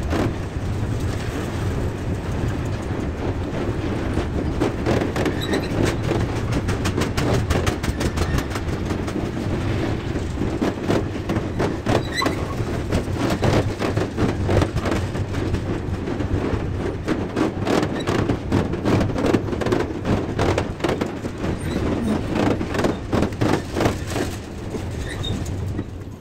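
Freight train of tarpaulin-covered wagons running past: a steady rumble of steel wheels on rail with rapid, many-fold clicking of wheels over rail joints, thickest in the second half. Near the end the last wagon passes and the sound drops away.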